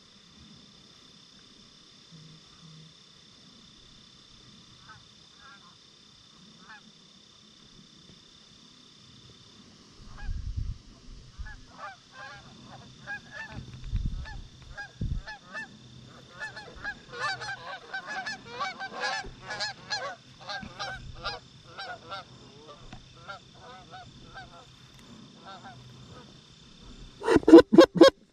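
A flock of Canada geese honking overhead. The calls start faint, build into a dense chorus of overlapping honks, then thin out. Near the end come a few loud, close honks blown on a hand-held goose call.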